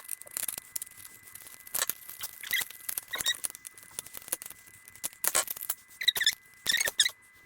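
Small handling clicks and short squeaks as a screwdriver turns a screw in the plastic casing of a Flipslide handheld game, with several quick squeaks close together near the end.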